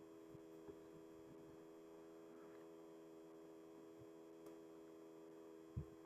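Near silence: a faint steady hum of several thin tones, with a few soft low bumps, the clearest shortly before the end.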